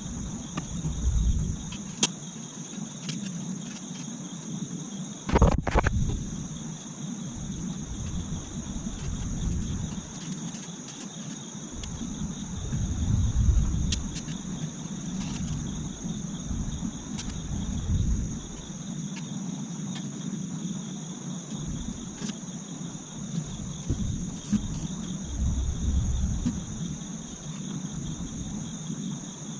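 Steady high chirring of insects, with occasional knocks and clicks from the metal parts of a patio heater being handled and fitted together, the loudest a sharp knock about five seconds in. A low rumble swells and fades several times.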